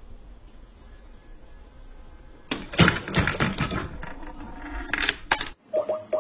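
Hammer on a swinging wooden arm of a home-made chain-reaction contraption clattering as it is released and swings, then a couple of sharp knocks as it strikes a laptop keyboard. Near the end, short beeps from the laptop as a call starts.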